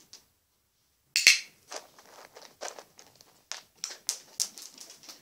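A small dog's claws clicking and tapping on a parquet floor as it moves and turns: an irregular run of short taps, with one sharper, louder click about a second in.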